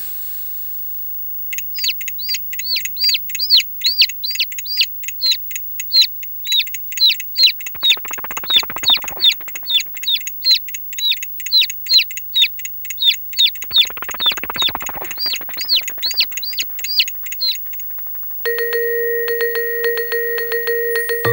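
Toy bird chirping: identical short rising-and-falling chirps repeating about three times a second. Twice a rattling buzz joins in for about a second and a half. Near the end the chirps stop and a steady tone with light ticking starts.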